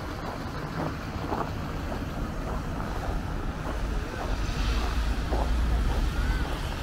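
Wind buffeting the microphone over the low rumble of road traffic, which swells about two-thirds of the way through as a vehicle goes by, with a walker's footsteps at roughly two a second.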